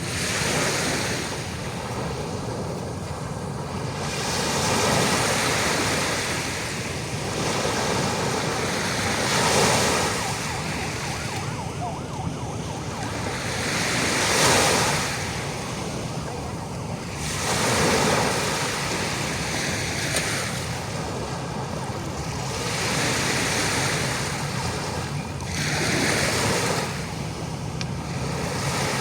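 Ocean waves breaking and washing on the shore, each wave swelling to a rushing peak every three to five seconds and then ebbing.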